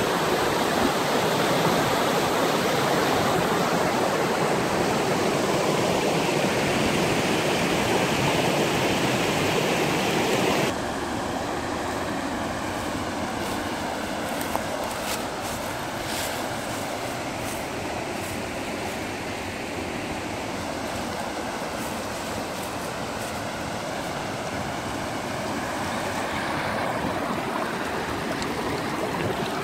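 River water rushing over stones in shallow rapids, a steady rushing noise. It drops abruptly to a quieter level about ten seconds in, and a few faint clicks follow.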